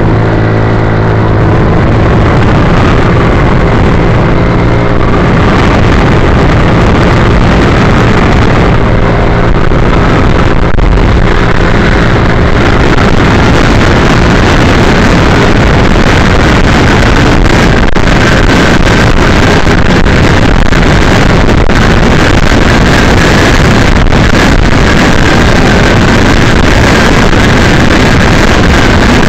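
Vehicle driving at highway speed, recorded from inside by a dashcam: loud, steady wind and road noise. An engine's hum is audible under it for the first few seconds, then is buried in the roar.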